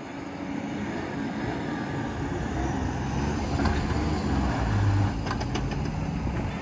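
Jeep Wrangler engine accelerating under load as it drives forward, yanking a stuck two-wheel-drive Toyota pickup out on a kinetic recovery rope. The engine grows louder as it comes closer, loudest about five seconds in.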